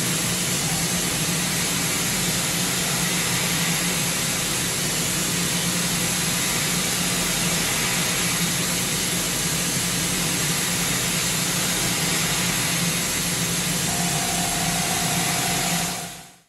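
CNC machining center finish-milling hardened SKD61 tool steel (50 HRC) with a 2 mm four-flute carbide corner-radius end mill at 6,000 rpm: a steady whir and hiss of the spindle and cut. A thin steady tone joins about fourteen seconds in, and the sound fades out at the very end.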